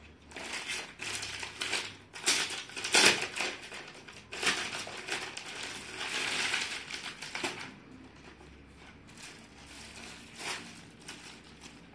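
Rustling and crinkling as folded suit fabric is handled and swapped for the next piece, in irregular bursts for about seven seconds, then fainter with a brief rustle near the end.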